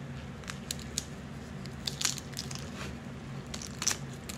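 Crab-leg shells being cracked and snapped apart by hand: a scatter of short, sharp cracks and crunches, the loudest near the end.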